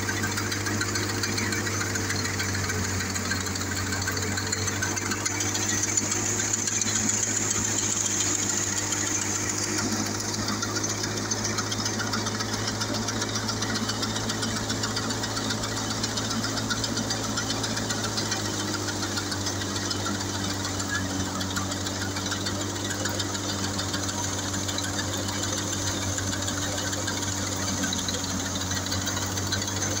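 Wheat thresher running steadily: a continuous mechanical drone with a low hum from its drive and threshing drum. Its tone shifts slightly about ten seconds in.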